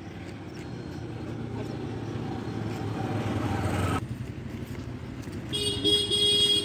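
A motor vehicle's engine grows louder as it approaches on the road, then cuts off abruptly about four seconds in. Near the end, a vehicle horn honks in a few short beeps.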